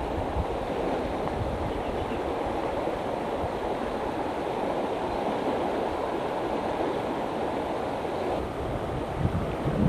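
Wide, fast-flowing river rushing steadily, with wind buffeting the microphone in low gusts that grow stronger near the end.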